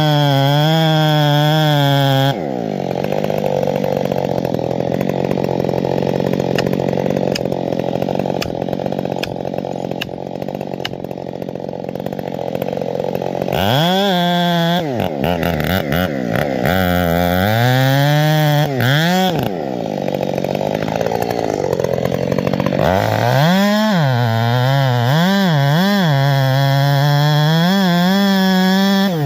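A Husqvarna 572 XP chainsaw cutting into wood at full throttle for about ten seconds, then its pitch swooping up and down for several seconds as the engine revs and drops. Music with a wavering singing voice is heard at the start and near the end.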